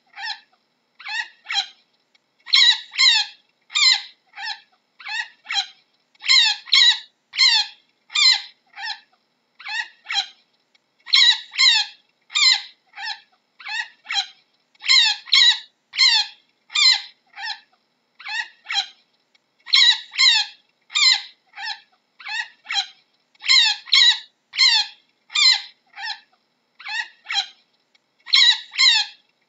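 Chinchilla calling: a long run of short, high-pitched calls, about two a second, with louder and softer calls alternating in runs.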